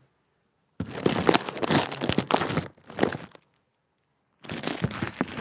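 Crinkling and rustling of packaging being handled, in two long stretches with a pause of about a second between them.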